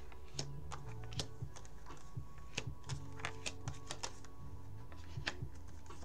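Soft background music of sustained low notes, with irregular light clicks and taps over it.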